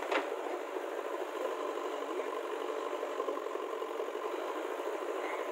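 Diesel engines of a JCB backhoe loader and a tractor running steadily, with one sharp knock just after the start.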